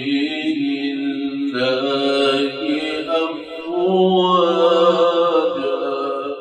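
Male Quran reciter chanting in melodic tajweed style, holding long drawn-out notes in two phrases. The second phrase is louder, and the voice fades away at the end.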